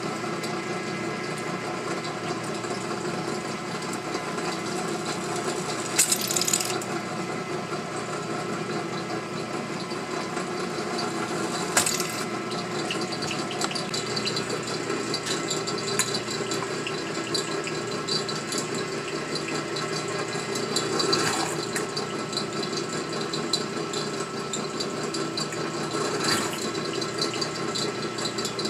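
Drill press motor running steadily, with four short louder bursts as the bit cuts through the thin sheet metal of a truck oil filter.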